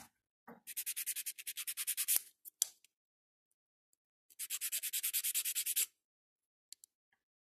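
Hand nail file rasping back and forth across an acrygel nail extension to shape it: two runs of quick strokes, about nine a second, the first starting half a second in and lasting about a second and a half, the second from about four and a half to six seconds in.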